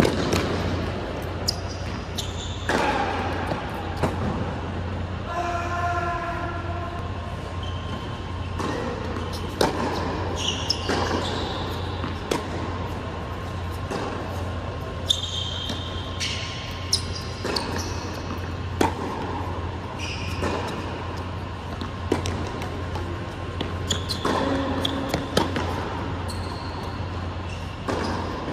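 Indoor tennis rally: racket strikes and ball bounces on a hard court every second or two, echoing in a large hall, with short high squeaks over a steady low hum.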